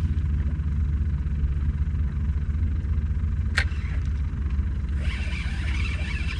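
Steady low rumble of wind buffeting the microphone on an open boat, with a short sharp tick about three and a half seconds in and a busier, higher chattering that joins near the end.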